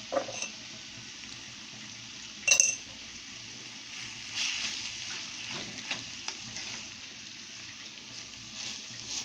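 A metal utensil stirring greens in a cooking pot over a faint steady sizzle, with scraping strokes and one sharp ringing clink against the pot about two and a half seconds in.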